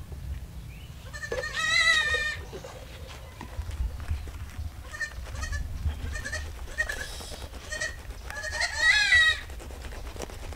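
A goat bleating twice, each a long quavering call of about a second, the first about a second in and the second about eight seconds in. Between the calls come a few light knocks from a hand chopper cutting up a plucked chicken on a sack.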